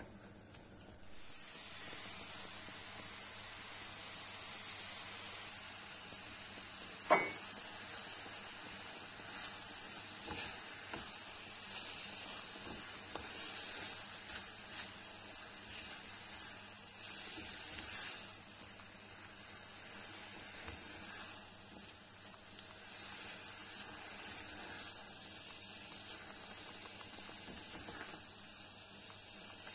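Grated apple sizzling in a nonstick frying pan as it cooks down with sugar, stirred with a silicone spatula. A steady high hiss runs on, with one sharp knock about seven seconds in and a few soft taps of the spatula.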